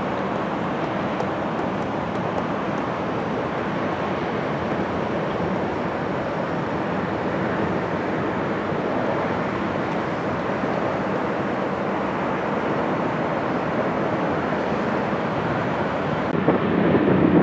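Steady rushing roar of a four-engined Boeing 747's jet engines as it comes in to land. Near the end the high hiss cuts out and a louder, deeper rumble takes over.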